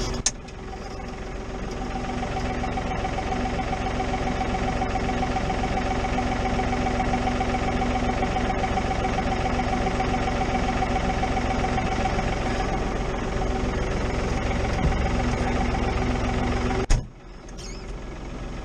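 Tractor engine running steadily at an even speed, with a brief drop-out near the end.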